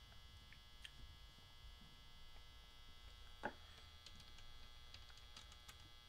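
Near silence: a steady low electrical hum, with a few faint small clicks and one sharper click about halfway through, from hands working the pedal's knobs.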